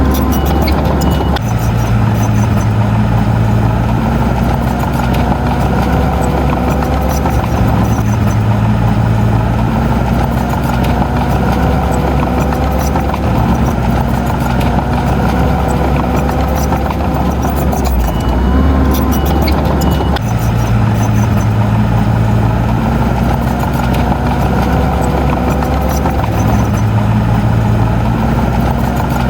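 Heavy diesel engine of earthmoving machinery running steadily, its low note shifting every few seconds as the load changes.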